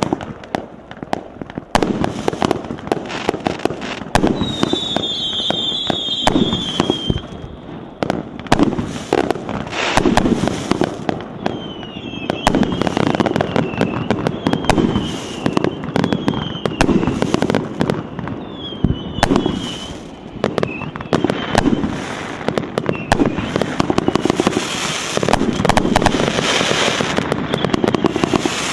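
Multi-shot firework battery (cake) firing, a rapid, irregular run of shots and bursts with short falling whistles now and then.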